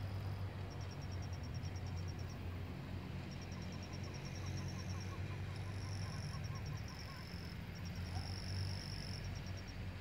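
Insects calling at night: high-pitched chirping in trains of about eight pulses a second, alternating with a steady high trill, over a low steady rumble.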